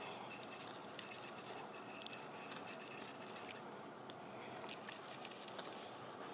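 Faint rustling and scraping of a paper shop towel wiping solvent off a nickel-finished AR-10 bolt carrier, with a few light metallic clicks as the part is handled.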